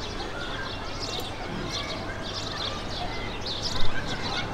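Birds chirping in short repeated calls over steady outdoor background noise, with a brief louder sound just before the end.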